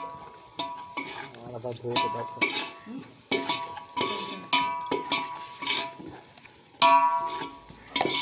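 A knife repeatedly clinking against a metal plate while radish is cut, each strike ringing briefly at the same pitch; the loudest clink comes near the end.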